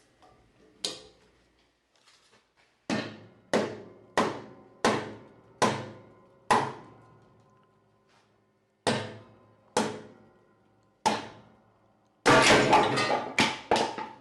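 Hammer blows on steel: about ten single ringing strikes at an uneven pace, then a quick, louder flurry of blows near the end.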